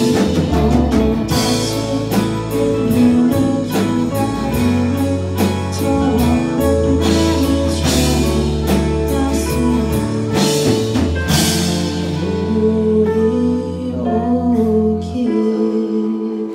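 Live rock band playing: a female lead vocal over electric and acoustic guitars, bass and a drum kit with cymbal crashes. About fifteen seconds in, the bass and drums drop away and the sound begins to die down at the song's close.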